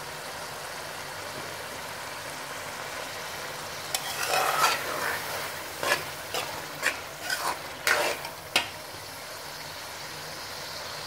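Ridge gourd and mutton masala sizzling softly in an aluminium pot, the ghee starting to separate at the end of the bhuna stage. From about four seconds in, a steel spoon stirs and scrapes the pot in a quick run of about eight strokes, then the gentle sizzle carries on alone.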